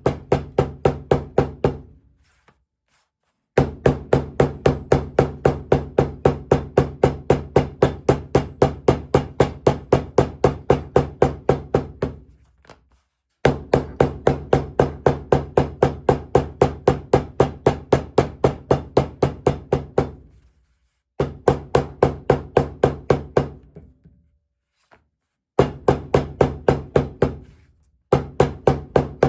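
Hammer tapping rapidly along a saddle-stitched leather seam to flatten and tighten the stitches and close gaps, about four blows a second in runs of several seconds with short pauses between; each blow rings briefly.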